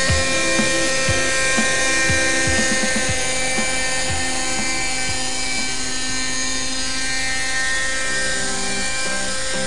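Raptor .32 nitro RC helicopter hovering, its OS .32 two-stroke glow engine running at a steady high-pitched whine.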